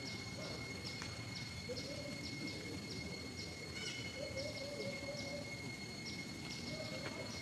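Outdoor wildlife ambience: a short high chirp repeating about twice a second over a steady high-pitched whine and a low background rush.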